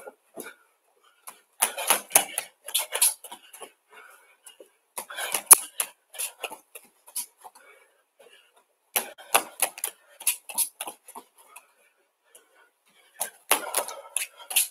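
Bare feet slapping on judo tatami mats in quick runs of footsteps, coming in four bursts with short pauses between.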